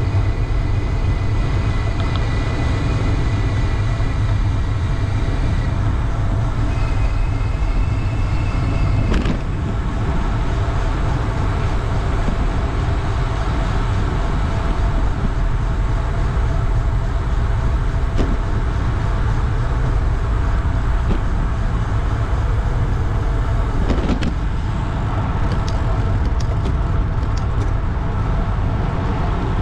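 Steady road-traffic noise from passing cars, with a heavy wind rumble on the microphone of a moving bicycle. A faint high whine sounds for the first nine seconds, and there are brief knocks about nine seconds in and again near the end.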